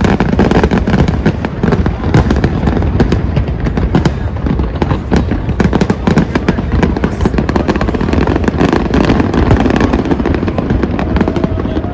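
Macy's 4th of July aerial fireworks display: a dense, continuous barrage of bangs and crackling, many shots a second, over a low rumble.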